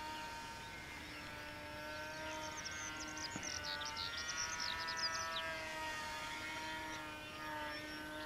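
Distant whine of a small electric RC plane's brushless motor and 5-inch propeller (HK-AP05 3000KV motor, GWS 5030 prop) running steadily overhead. Its pitch sways slightly up and down with throttle through the manoeuvres. A run of quick high chirps comes in the middle.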